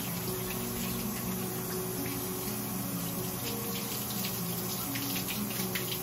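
Water running steadily from a tap, splashing as a dog is rinsed.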